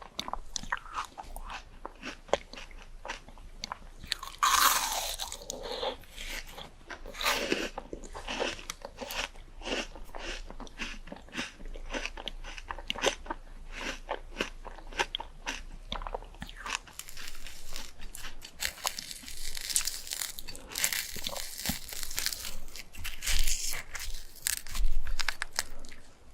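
Biting into and chewing crunchy fruit close to the microphone: a steady run of crisp crunching clicks, with a loud bite about four and a half seconds in and busier crunching in the last third.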